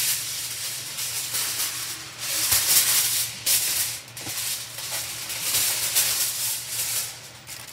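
Aluminium foil crinkling and rustling in uneven bursts as it is handled and wrapped around a whole raw chicken, over a low steady hum.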